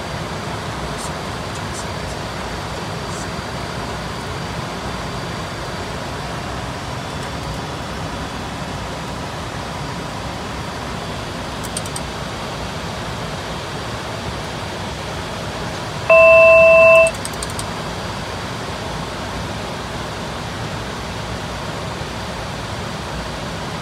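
Steady in-flight cockpit noise of a Dornier 328Jet, airflow and engine noise in an even hiss. About two-thirds of the way through, a single loud electronic cockpit alert tone sounds for about a second.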